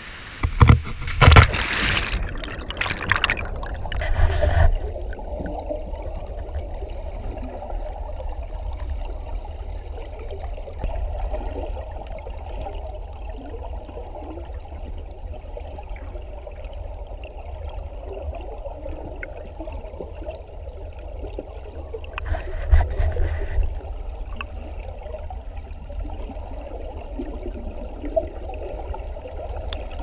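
Waterfall whitewater roaring, with several sharp splashes, for about the first four seconds. Then, with the camera underwater, the river's rush is heard muffled and low through the water, and a brief louder splashing burst comes about two-thirds of the way in.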